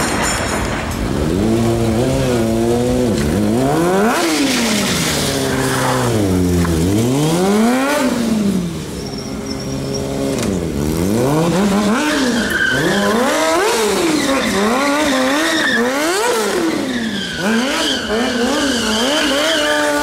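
Stunt motorcycle engine revving hard, rising and falling in pitch again and again. The swings are long and slow at first and become quicker and shorter in the second half.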